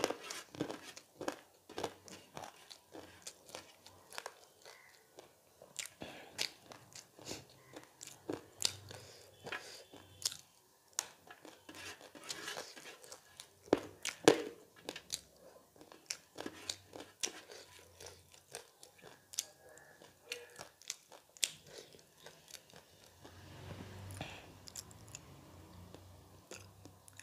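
Close-miked crunching and chewing of crunchy pani puri crumbs, with many sharp crunches throughout. Near the end the sound turns to slurping and gulping of pani from the bowl.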